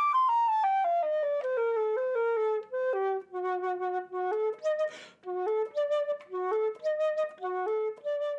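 Solo flute playing a melody, one unaccompanied line: flowing notes at first, then short detached notes with small gaps from about three seconds in.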